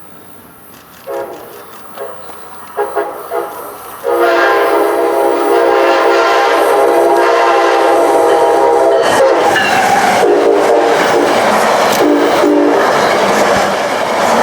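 Nathan K5LA five-chime air horn on a SEPTA train, sounded in a few short toots and then one long blast of about five seconds. The loud noise of the passing train follows, with another short toot near the end.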